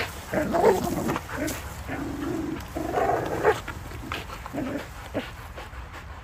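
Belgian Malinois dogs growling as they bite and tug on a hanging rope toy, in several rough stretches. The longest runs about a second and a half near the middle, with shorter ones after it.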